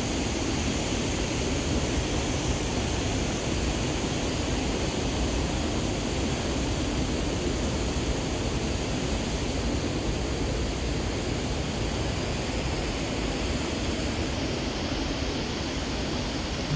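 A river rushing in a steady, unbroken roar.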